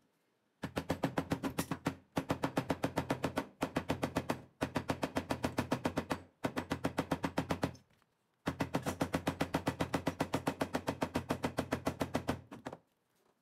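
A small plastic-faced mallet tapping rapidly on stitched leather lying on a cutting mat, about eight blows a second, in six runs with short pauses between them. This is the flattening of the stitching along the wallet's edges.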